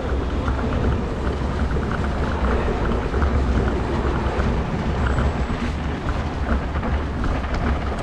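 Steady wind buffeting on a camera microphone over the low rumble of an electric kick scooter rolling over icy, snow-packed pavement.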